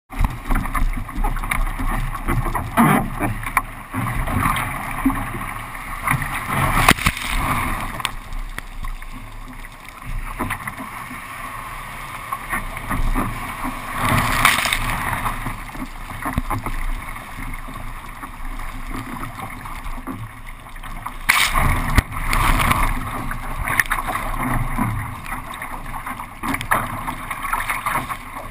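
Water rushing and splashing around a kayak paddling on rough sea, with wind buffeting the microphone. The sound is irregular, with louder splashes about 3, 7, 14 and 21 seconds in.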